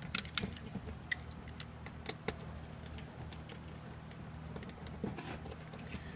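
Screwdriver backing out a small mounting screw from a rotisserie spit motor, giving scattered light metallic clicks and scrapes over a low steady hum.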